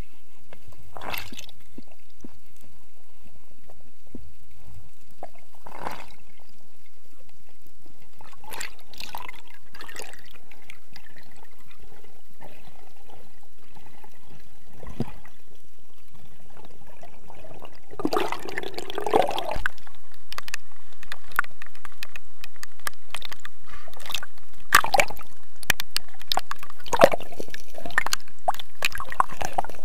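Water heard through an underwater camera: scattered clicks and bubbling at first, then about eighteen seconds in a burst of splashing as the camera breaks the surface, followed by water sloshing and splashing against it.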